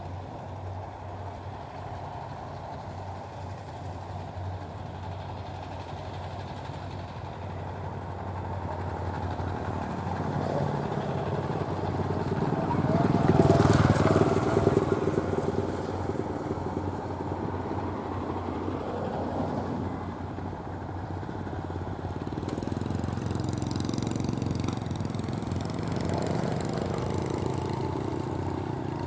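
Crawler rice-hauling tractor's engine running steadily, growing louder to a peak about halfway through, easing off, then louder again in the later part.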